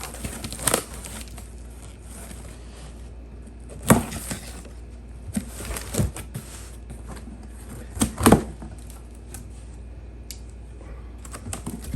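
A cardboard shipping box being opened and its packaging handled: scattered knocks and rustles, with the loudest a few seconds apart.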